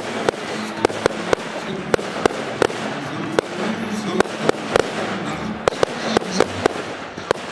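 Fireworks going off in quick, irregular succession: sharp bangs and crackles several times a second.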